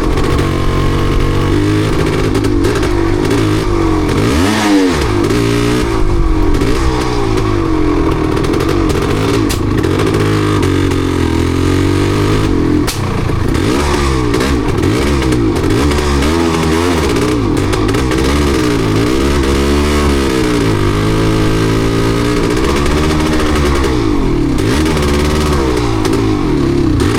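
Yamaha DT250MX single-cylinder two-stroke engine running under way, its revs rising and falling again and again. The bike has a misfire, which the rider puts down to water in the engine.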